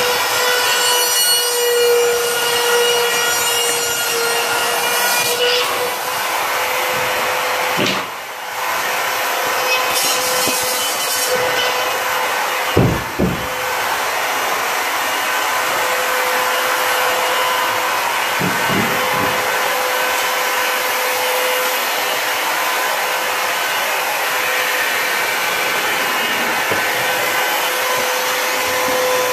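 A small electric motor running steadily with a high whine and a hiss, and a few knocks from the work, the loudest about 13 seconds in.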